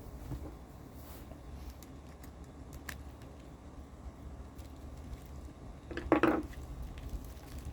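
Small parts being handled during a repair: faint scattered clicks, then a short rattling clatter about six seconds in.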